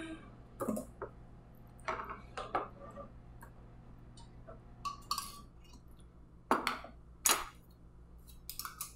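Metal canning lids clinking and tapping against a steel pan and glass jars as they are lifted out and set on the jar mouths: scattered light clinks, with two louder ones about six and a half and seven and a half seconds in.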